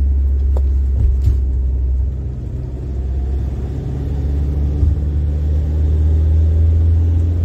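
Car running down the road, heard from inside the cabin: a steady low rumble of engine and road noise that eases off a couple of seconds in and builds back up.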